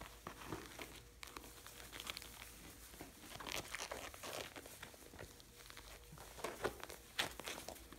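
Dry straw rustling and crackling under a litter of puppies moving and jostling on it, in irregular bursts with a few sharper crunches.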